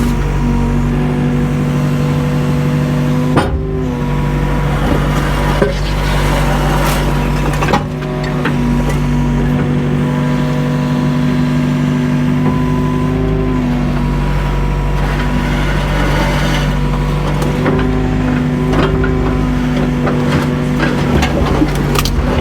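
Mini excavator's diesel engine running steadily under load with a whine from the hydraulics as the machine works, with a few short knocks about three and a half, six and eight seconds in.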